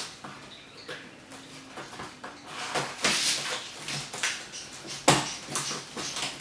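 Hands working at the top of a cardboard box, picking and scraping at its tape and flaps: a run of scratchy rustles, with a sharp knock about five seconds in.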